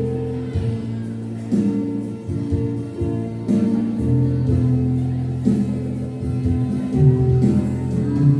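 A school choir singing, holding long chords that change every second or so, with instrumental accompaniment.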